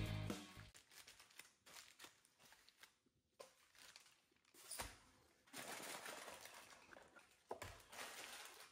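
Background music fades out at the start, then faint crinkling and rustling of aluminium foil being folded and crimped around a rack of ribs.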